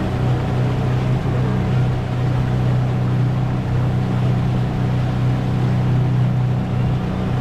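Motorboat engine running steadily under way, a constant low drone over wind and water rush.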